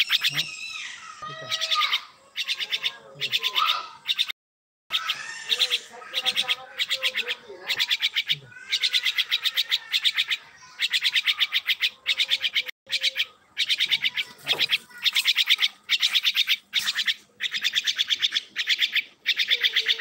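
Tame myna calling: bursts of fast rattling chatter repeating about once a second, with gliding whistled notes in between.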